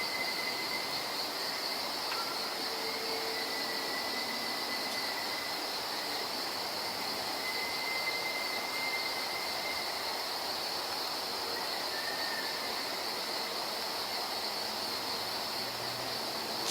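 A thin, high whistling tone of unknown origin holds nearly one pitch, sounding in stretches of a second or two and dropping out between them, with one brief lower note near the middle. Under it runs a steady, high chorus of insects.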